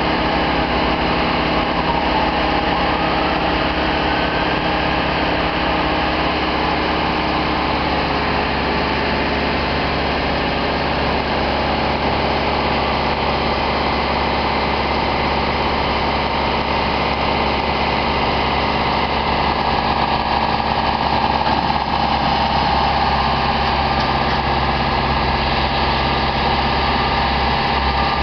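Engine of a telescopic boom lift running steadily while the boom is moved, a constant mechanical hum with no break.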